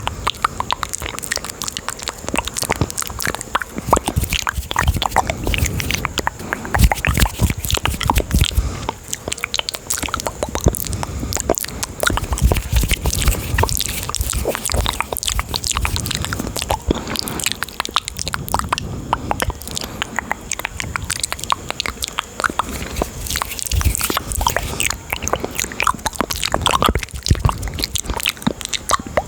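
Close-miked ASMR mouth and hand sounds: a dense, continuous stream of quick clicks and smacks.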